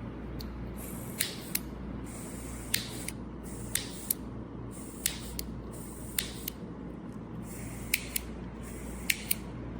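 A series of sharp mechanical clicks, mostly in pairs about a third of a second apart and repeated every second or so, over a steady low hum.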